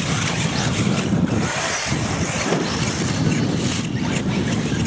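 Radio-controlled off-road cars running around the track, a steady mix of motor and tyre noise with wind buffeting the microphone.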